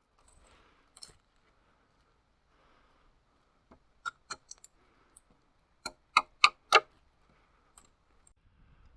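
Sharp wooden knocks of wood being struck. They come in two quick runs of three or four blows, about four and six seconds in, and the second run is the loudest.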